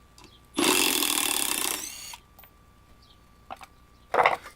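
Bosch PDR 18Li cordless impact driver running for about a second and a half as it drives a fastener into solid wood without a pilot hole, then a second short burst near the end.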